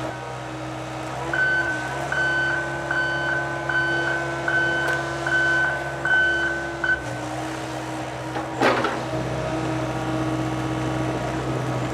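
John Deere 85G excavator's diesel engine running steadily, its travel alarm beeping about twice a second for around five seconds as the machine moves. About two-thirds of the way in there is a short, loud burst of noise.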